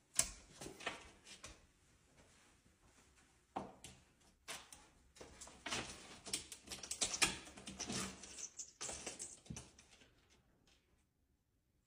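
Faint, irregular tapping and scratching of a cat's paws and claws against a textured wall while it is held up to it, with some rustling from the handling. The taps are most frequent in the middle stretch.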